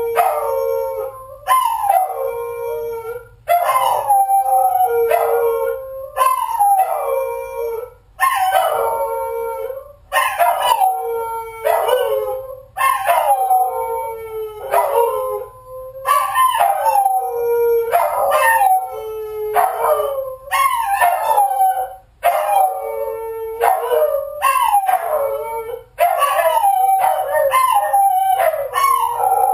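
A dog left home alone howling over and over, each howl sliding down in pitch, one after another every second or two.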